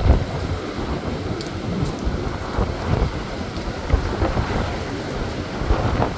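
Storm wind gusting and buffeting the microphone with low rumbles, over a steady rushing noise.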